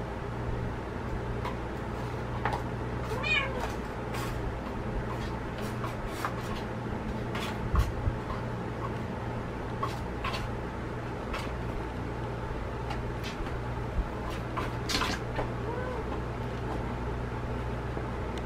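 Kittens mewing now and then amid scattered light clicks and knocks as they play with a small box on a tile floor, over a steady low hum.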